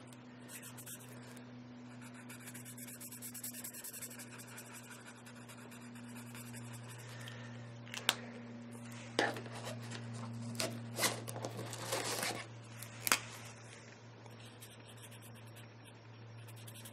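Prismacolor felt-tip marker strokes scratching on paper, then several sharp clicks in the middle as markers are swapped and their caps pulled off and snapped on. A steady low electrical hum runs underneath.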